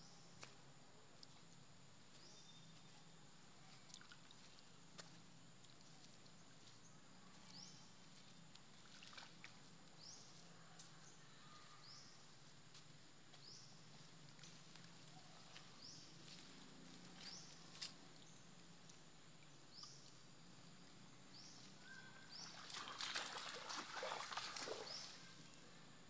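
Faint small splashes and clicks as a long-tailed macaque rummages with its hands in shallow muddy water, with a louder stretch of sloshing and splashing about 23 seconds in that lasts about two seconds.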